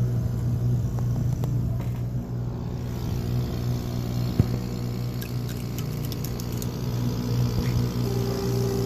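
K40 laser cutter rigged as a sugar SLS printer, running with a steady low hum while its gantry moves the sugar-spreading hopper. A short run of light ticks comes about five seconds in, and a steady higher tone joins near the end.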